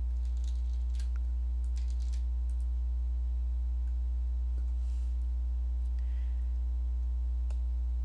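Steady electrical mains hum with a stack of overtones, under a few faint computer keyboard clicks in the first couple of seconds.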